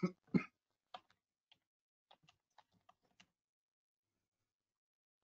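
Computer keyboard typing: two heavier key thumps at the start, then a scatter of light, irregular key clicks that stop a little past three seconds in.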